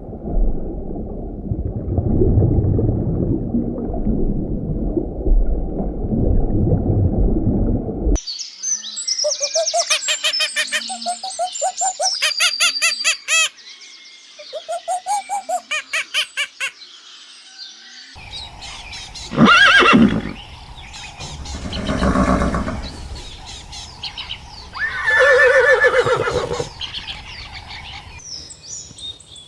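Farm-animal sounds in three short clips: first a low muffled noise that cuts off abruptly, then quick high bird chirping, then horses neighing three times, each neigh a loud call several seconds apart.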